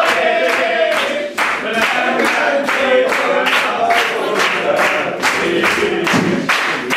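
A group of voices singing together, with sharp rhythmic beats about three times a second under the song.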